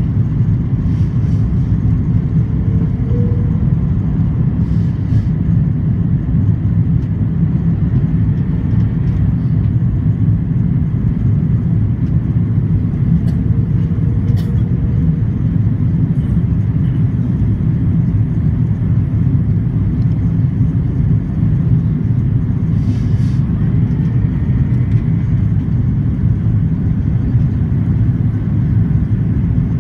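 Steady low rumble of engine and airflow noise inside the cabin of an Airbus A330-300 with Rolls-Royce Trent 700 engines, on its approach to land. A few faint small clicks come through now and then.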